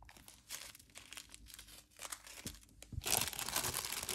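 Thin clear plastic bags crinkling as hands reach into a large bag and pull out small zip-lock bags of diamond-painting drills: light scattered crackles at first, growing louder and denser about three seconds in.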